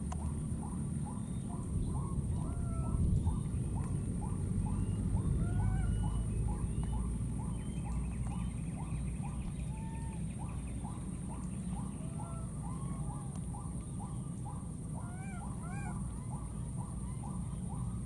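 Animal calls: a short note repeating about three times a second without a break, with occasional higher rising chirps, over a steady low rumble.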